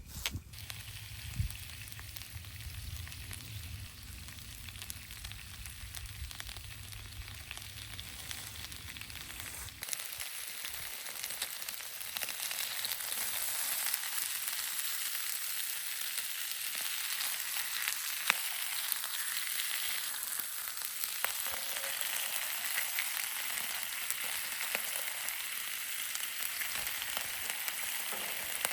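Food sizzling and frying in a hot pan: a steady hiss with dense fine crackles that grows louder about ten seconds in.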